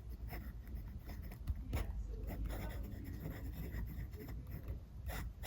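Montblanc Meisterstück 149 fountain pen writing on paper: faint, irregular scratches of the nib moving across the page.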